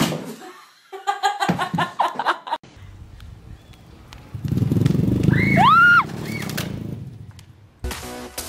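Small step-through motorbike engine revving hard for about two seconds and then cutting off abruptly, with a short high cry rising and falling over the end of it.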